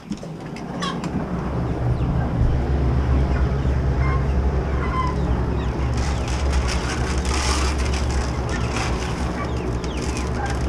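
A vehicle engine running with a steady low rumble that builds over the first couple of seconds, then holds.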